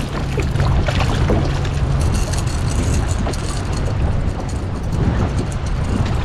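Boat motor running steadily at trolling speed, its low hum clearest in the first two seconds, under wind buffeting the microphone and water rushing along the hull.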